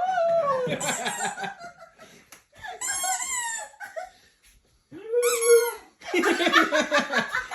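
A poodle crying and howling in four bursts of wavering cries, one a steady held note about five seconds in, set off by a squeaky sound.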